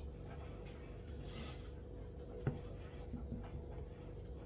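A fork mixing butter and sugar in a bowl: faint scraping, with a single light clink about two and a half seconds in, over a steady faint hum.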